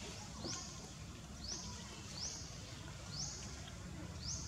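Forest ambience: a short, high, buzzy animal call repeating about once a second over a steady low rumble of background noise.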